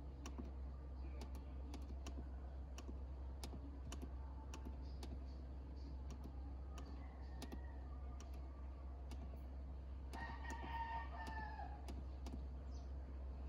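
Faint background ambience: a steady low hum with scattered sharp clicks, and one pitched call lasting about a second and a half about ten seconds in.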